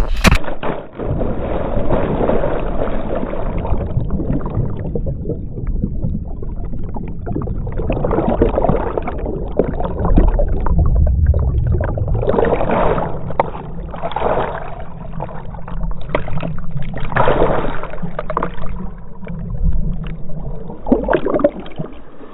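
A man plunging feet-first into the sea with a GoPro in its waterproof case: a splash at entry, then muffled underwater rushing and bubbling with a heavy low churn while he swims under the surface. A few louder surges of bubbles come in the middle, and the sound thins near the end as the camera comes back up.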